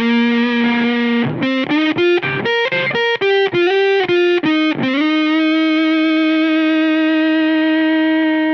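Electric guitar (Fender Stratocaster) played through a JHS 3 Series fuzz pedal into a tube amp: a held note, a quick run of single fuzzy notes, then one long sustained note.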